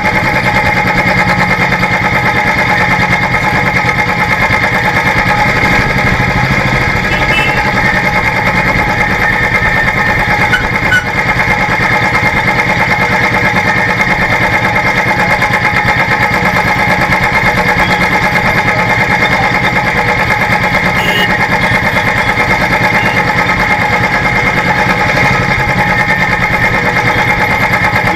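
Royal Enfield single-cylinder four-stroke motorcycle engine running steadily at low riding speed in traffic, heard close from a camera mounted on the bike.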